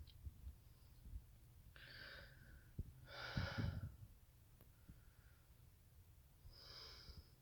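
A person breathing audibly close to the microphone, three breaths during a pause in talking, the middle one the loudest.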